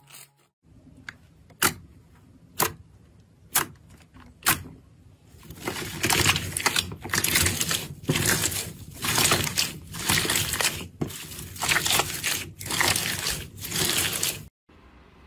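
Hands squeezing clear red slime packed with jelly-like crunchy pieces. First come four sharp pops about a second apart, then dense crackling crunches in repeated squeezes.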